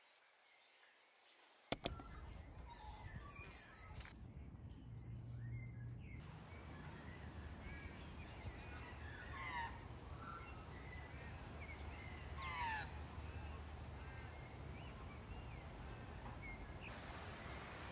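Birds calling outdoors, with a few sharp falling calls standing out in the middle, over a steady low outdoor rumble. Two sharp clicks just before two seconds in, where the outdoor sound begins.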